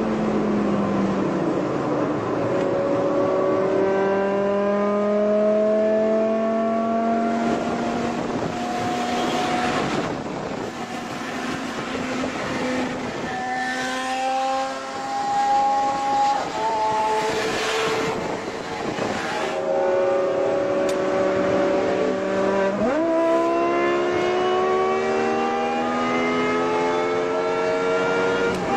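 BMW M5 E60's 5.0-litre V10 at full throttle, heard from inside the cabin: the engine note climbs in long runs through the gears and drops back at each upshift. A sudden jump up in pitch comes about two-thirds of the way in.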